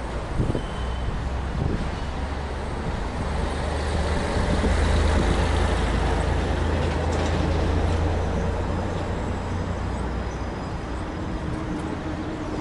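Electric tram pulling away along street track: a low rumble of its motors and wheels on the rails that swells in the middle and then eases off as it moves away. A couple of short knocks sound near the start.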